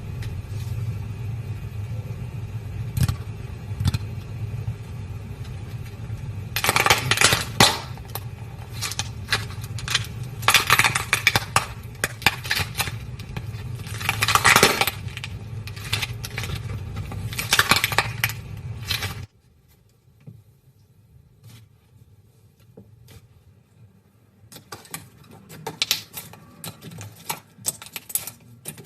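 Slime being squeezed and poked by hand, giving rapid sticky clicks, pops and crackles. A steady low hum runs under the first part. About two-thirds of the way through, the sound drops abruptly to quieter, sparser clicks.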